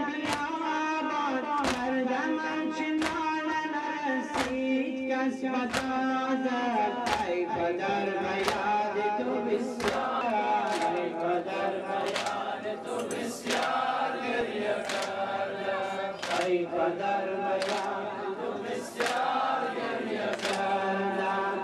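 A group of male voices chanting a Muharram mourning lament together, with a sharp beat keeping time a little more than once a second.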